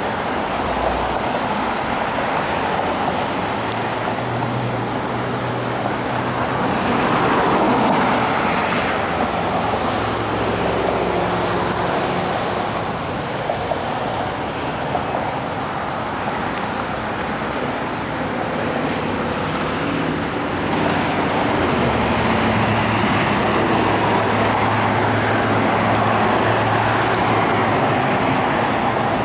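Road traffic: cars and SUVs driving past with tyre noise and engine hum. It swells about seven seconds in, and again from about twenty seconds in as more vehicles pass.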